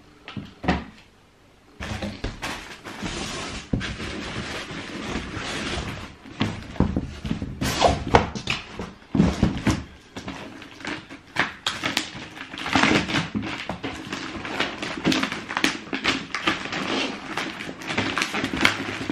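Cardboard shoe boxes and their paper being handled: a knock just under a second in, then, from about two seconds in, continuous rustling and crinkling with many sharp clicks and knocks as boxes and trainers are moved about.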